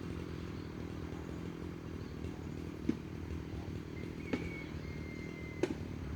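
Chainsaw engine idling steadily, with three short sharp clicks about three, four and five and a half seconds in.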